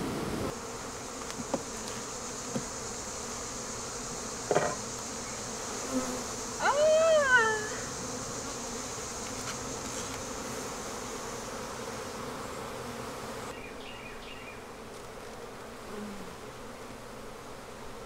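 Honeybees buzzing steadily around an opened hive. There is a soft knock about four and a half seconds in, and a short rising-and-falling tone, the loudest sound, a little over six seconds in.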